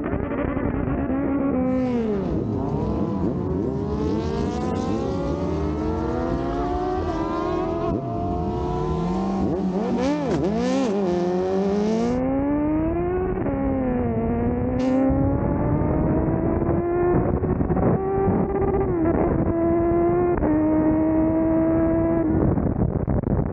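Superbike engine accelerating hard through the gears: its pitch climbs and drops back at each upshift, several times over, then holds steady before giving way to a rush of wind noise near the end.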